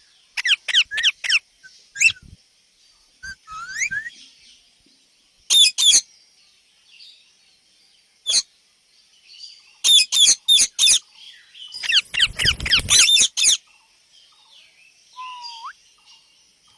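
Indian ringneck parakeets calling: runs of four to six short, shrill screeches in quick succession, with pauses between the runs.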